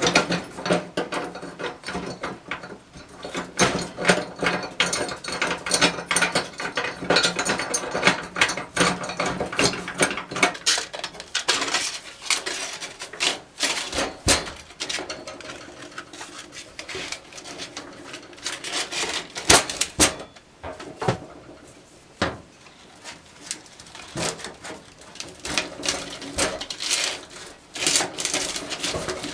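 Workshop handwork on metal parts: irregular clicking, ratcheting and knocking throughout, with a steady hum underneath for roughly the first third.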